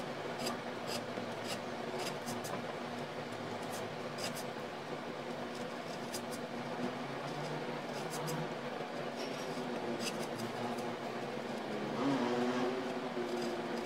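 A sharp hand scraper scraping out a crack in a wooden easel support, in short irregular scratching strokes, over a steady low hum.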